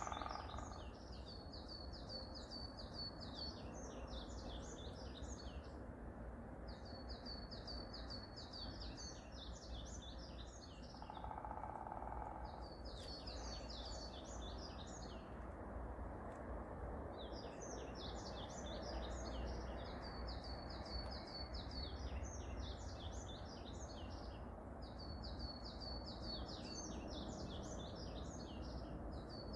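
A songbird singing the same phrase over and over, each a run of quick, even notes running into a jumbled twitter, with short pauses between phrases. A steady low background rumble runs underneath.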